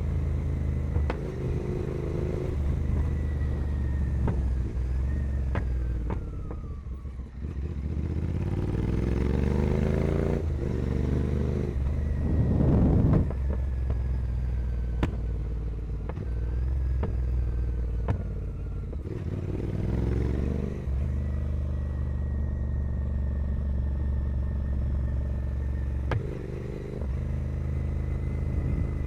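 Royal Enfield Continental GT 650's parallel-twin engine through a carbon-fibre 2-into-1 racing exhaust, pulling and easing off while riding, its revs rising and falling several times. It goes quieter off the throttle about seven seconds in, and is loudest in a sharp rise in revs about thirteen seconds in.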